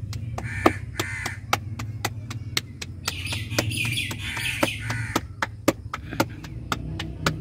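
Roti dough being slapped flat between the palms by hand, a quick even patting of about four slaps a second. Birds call in the background over a steady low hum.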